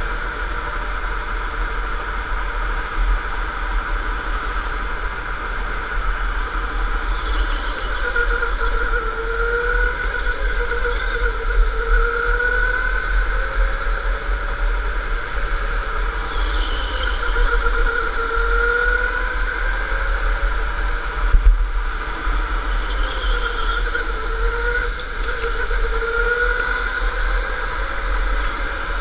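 Electric indoor go-kart's motor whining at speed, its pitch rising and falling as the driver accelerates and lifts, with a few short tyre squeals. A sharp knock about 21 seconds in.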